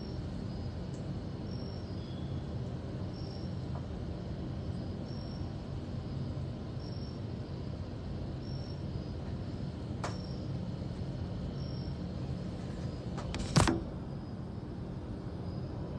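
Steady low room hum with no speech. Faint short high ticks come about every two seconds, and a single sharp click sounds about thirteen and a half seconds in.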